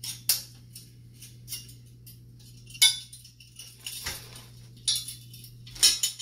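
Hard frame parts of a sports arcade game, L brackets, clinking and knocking as they are handled and snapped together: several sharp clinks a second or so apart.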